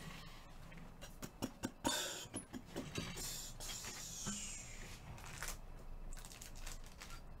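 Handling noise at a table: a quick run of clicks and taps, then a longer rustle and slide a few seconds in, as cards and their packaging are gathered up.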